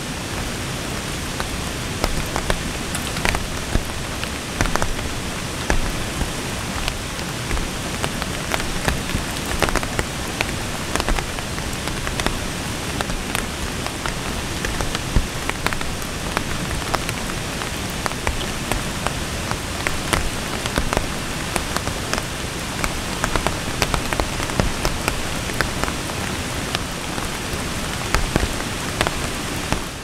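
Heavy rain falling steadily, with many individual drops striking sharply through the steady hiss.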